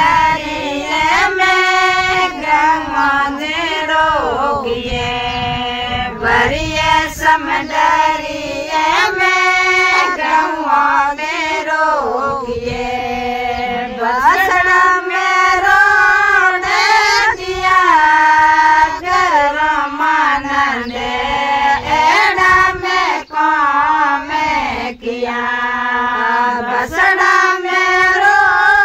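A group of women singing a Rajasthani harjas, a devotional folk song, together in long held, gliding sung lines.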